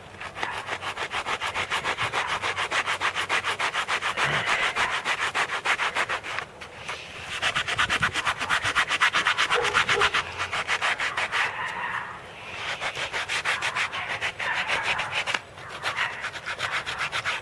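Hand-sanding a cured, glass-filled epoxy repair on a chainsaw's plastic hand guard with a flexible sanding sponge. Quick, even back-and-forth rubbing strokes come several a second, with brief pauses about six, twelve and fifteen seconds in.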